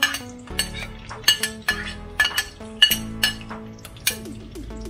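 Metal ladle clinking and scraping against a glass pot lid, about a dozen sharp, uneven clinks, as chopped garlic is pushed off the lid into the pot.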